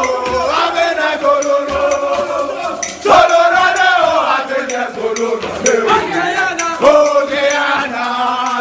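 A group of men singing a chant together, loud, with the singing swelling about three seconds in and again near seven seconds, and scattered sharp clicks among the voices.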